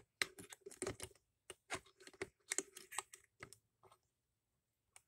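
Faint clicks and light metallic taps of a model engine's steel crankshaft and its bearings being dropped and worked into their supports, a quick irregular run of small knocks that thins out after about three and a half seconds.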